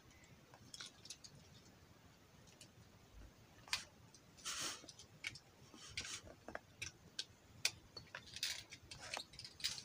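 Faint, irregular small plastic clicks and taps from Beyblade tops being handled and readied for a battle, with a brief rustle about four and a half seconds in.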